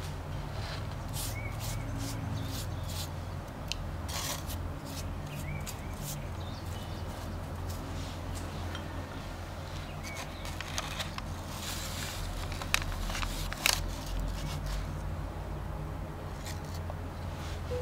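Silicone pastry brush dabbing and stroking egg wash over raw pie pastry, and fingers pressing a dough strip onto it: soft wet brushing and rubbing with scattered light clicks, two sharper ones about two-thirds of the way in, over a steady low hum.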